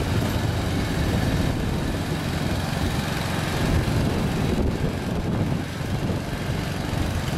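Quad bike's engine running steadily as it drives along, a continuous low drone.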